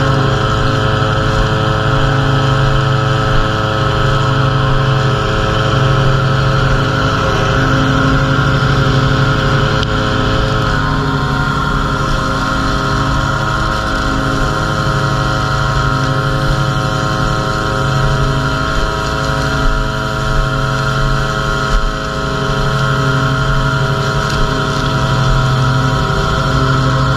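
Gas-powered string trimmer running steadily at high speed, its line cutting grass along a bed edge. A riding mower's engine hums underneath.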